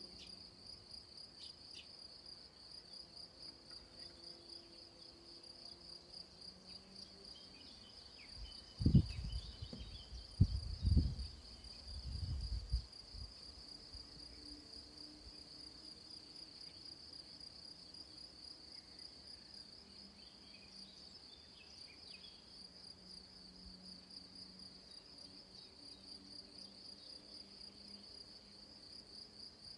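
Crickets chirping in a steady, fast-pulsing high trill. A few loud low thumps come about nine to thirteen seconds in.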